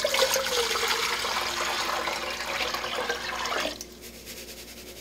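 Liquid poured in a steady splashing stream from a glass measuring cup into a cooking pot, stopping about three and a half seconds in.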